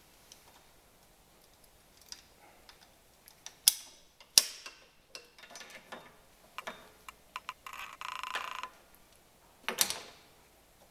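Hand tools working on a car's drum brake during a wheel cylinder replacement: scattered metallic clicks and knocks, a few of them sharp and loud, with a short buzzing rattle about eight seconds in.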